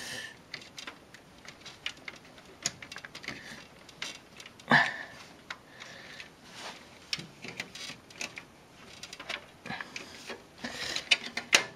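Scattered small clicks and rustles of hands moving cables and parts inside a desktop computer case, with one louder click about five seconds in.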